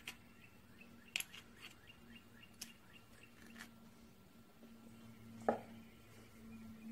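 Faint scraping and light clicks of a small brush working dried grease out of a metal engine grease cup, over a steady faint hum. A sharper knock of a metal part on the workbench comes about five and a half seconds in.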